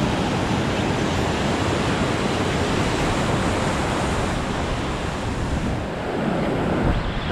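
Ocean surf breaking and washing over shallow sand, a steady rush of water.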